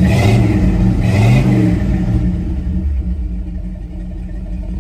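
Bullnose Ford pickup's engine running as it warms up to about 170 degrees on the way to operating temperature. Its pitch rises and falls twice in the first second and a half, then it settles into a steadier, slightly quieter run.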